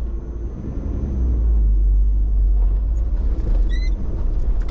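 A Toyota 4x4 motorhome driving along a dirt track, heard from inside the cab as a steady low rumble of engine and tyres. A brief high chirp rises once near the end.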